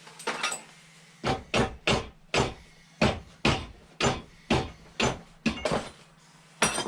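Hand hammer striking repeatedly during suspension bushing work: a series of about a dozen sharp blows at roughly two a second.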